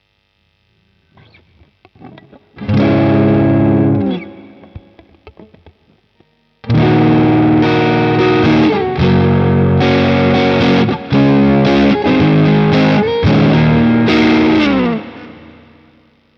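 Electric guitar played through a Caline Pure Sky overdrive pedal, a Timmy clone, giving a lightly crunchy tone. After a few faint string scratches, one chord is struck about three seconds in and left to ring. From about seven seconds a run of strummed chords with short breaks follows, ringing out near the end.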